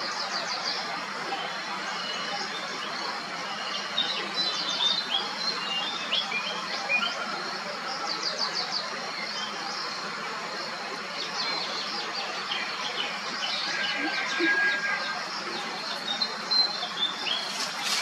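Small birds chirping and trilling, many short high calls overlapping over a steady background hiss, with a burst of rapid trills near the end.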